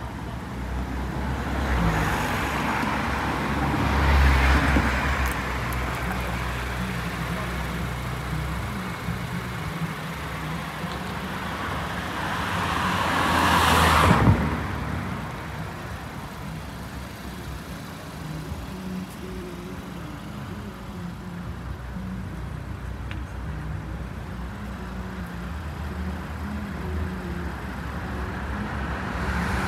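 Road traffic passing on a city street over a steady low engine hum. Vehicles swell past a couple of times early on, then one builds to a loud pass about halfway through and drops away suddenly.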